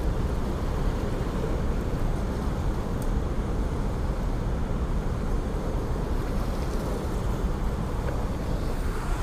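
Steady rushing of whitewater pouring from an open dam close by: an unbroken noise heaviest in the low end.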